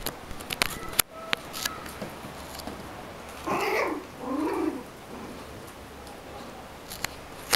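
Chihuahua puppy whining twice, two short high calls of about half a second each, just past the middle, while the puppies play-fight. A few sharp clicks come in the first couple of seconds.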